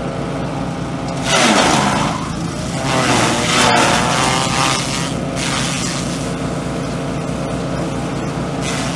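Grass chopper driven by a small engine running steadily, with loud rasping bursts as elephant grass stalks are fed in and cut, about a second in, around three to four seconds, near five seconds and near the end. The engine note dips briefly under the load of the first feed.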